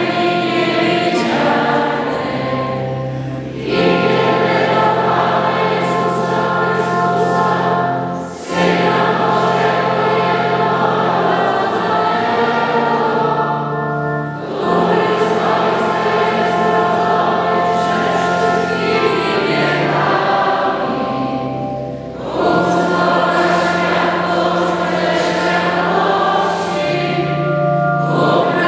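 A choir sings a church hymn in long, sustained phrases, with steady low notes held underneath and short breaks between phrases.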